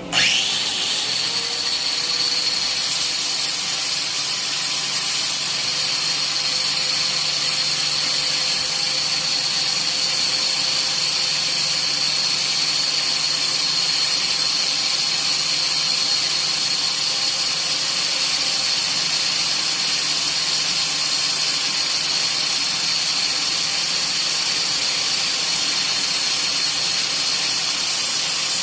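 Electric grinder used to dress a TIG tungsten, switched on and spinning up within about a second, then running at a steady high whine.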